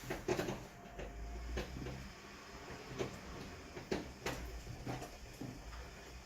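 Scattered plastic clicks and knocks of a power brick and a loose-fitting plug adapter being handled and pushed into a wall socket, over a low hum.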